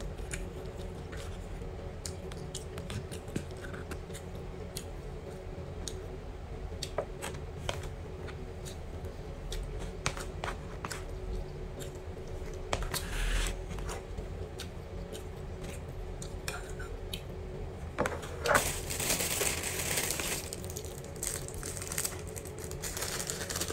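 Metal spoon clicking and scraping against a plastic takeaway tray, with eating sounds, over a steady low room hum. About 18 s in comes a few seconds of loud plastic bag rustling and crinkling as a bag of liquid is handled and opened.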